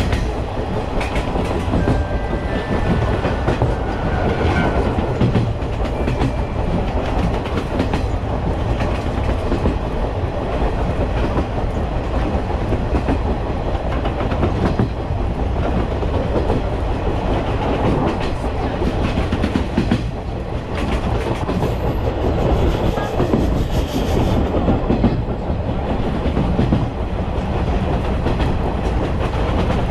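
Steam-hauled passenger train running at speed, heard from inside a coach at the window: a steady rumble with the wheels clicking over the rail joints.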